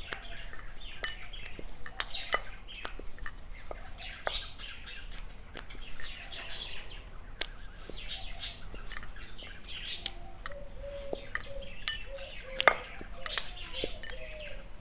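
Rolling pin rolling out dough on a round board in repeated strokes, with light clicks and knocks about once a second and one sharper knock about three-quarters of the way through. Birds chirp in the background, with a run of short calls from about two-thirds of the way through.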